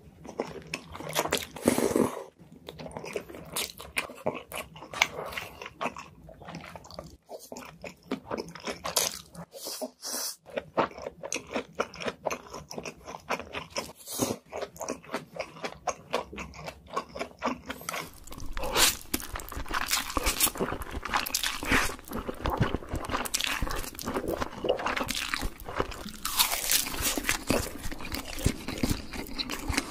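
Close-miked eating sounds of spicy instant noodles with melted cheese and a cheese-stuffed block of luncheon meat: chewing and biting in dense, quick clicks. About two-thirds of the way in, the sound becomes louder and busier as a second eater's chewing takes over.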